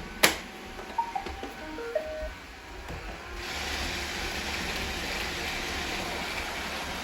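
A robot vacuum being started: a button click, a short tune of electronic beeps, then its motor and brushes start up and keep running with a steady whirring hiss.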